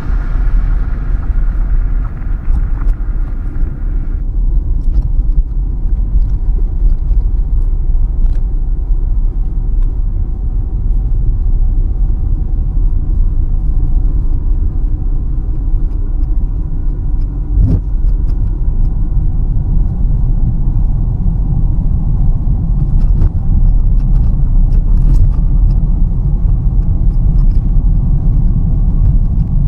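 Steady low road and engine rumble of a car driving, heard from inside the cabin, with a single light knock a little past halfway.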